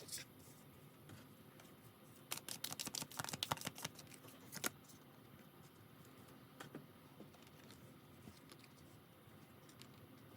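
Tarot cards being handled: a quick patter of light clicks and taps for about two seconds, ending in one sharper tap, with a few faint single clicks before and after.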